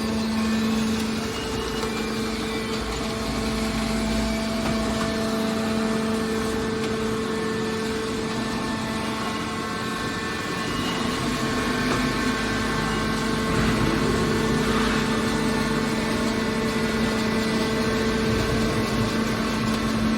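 Hydraulic metal baler's power unit, an electric motor driving the hydraulic pump, running steadily with a constant hum.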